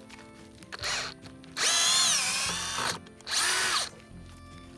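Cordless drill/driver backing screws out of the wooden concrete form boards, in three runs: a short one about a second in, a longer one whose pitch drops near its end, and a brief one near the end.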